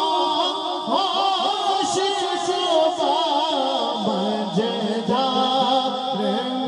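A man singing a naat, an Urdu devotional poem, unaccompanied and amplified through a microphone, in an ornamented melody with wavering, decorated notes. The melody drops to a lower pitch about four seconds in.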